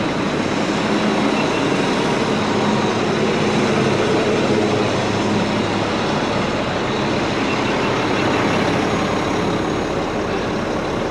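A Mack front-load garbage truck's diesel engine idling steadily.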